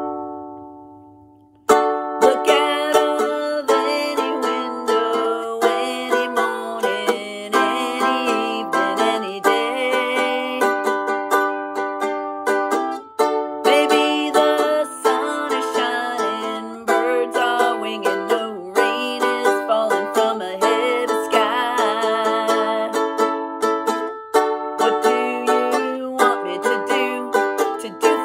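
Ukulele strummed: one chord rings and fades, then steady rhythmic strumming starts about two seconds in, with a woman singing along.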